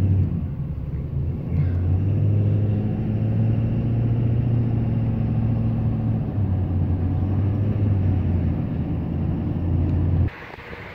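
Vehicle engine and road noise heard from inside the cab while driving: a steady low drone that shifts slightly about six seconds in and cuts off abruptly near the end.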